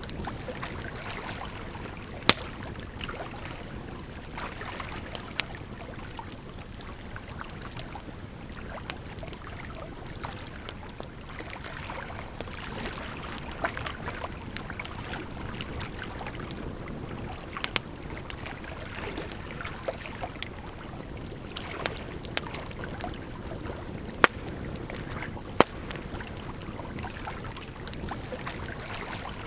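Firewood burning with sharp crackles and pops every few seconds over a steady rush of flowing water.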